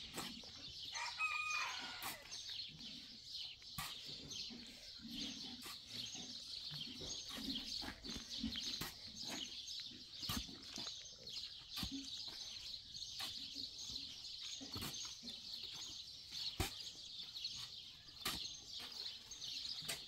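Chickens clucking, with a short pitched call about a second in, over a steady high chirping. Scattered sharp knocks are heard throughout.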